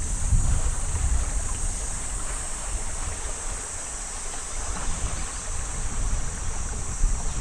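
Wind buffeting the microphone: an irregular low gusting rumble, with a steady high hiss above it.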